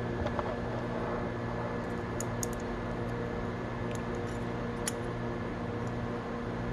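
Steady machine hum in a small room, with a few faint light clicks as small gear pieces are handled and fitted together.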